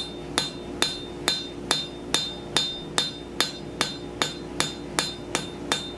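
Blacksmith's hand hammer striking a hot steel scroll on an anvil in a steady rhythm, about two and a half blows a second. Each blow leaves the anvil ringing.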